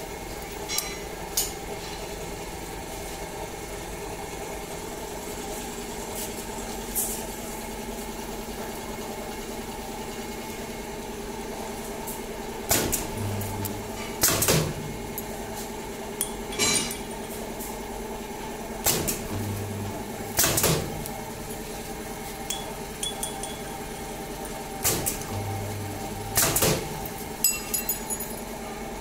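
Pneumatic wire butt welding machine working through three weld cycles over a steady machine hum. Each cycle brings a sharp clack as the pneumatic clamp closes, a brief low electrical hum while the weld current flows, and a louder clunk with a burst of air as the cylinder releases.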